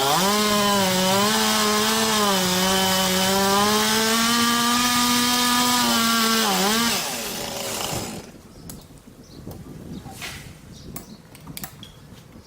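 Chainsaw run at full throttle, cutting into wood for about seven seconds, its pitch sagging briefly a couple of times under load. The throttle is then released and the engine dies away, leaving scattered clicks and knocks.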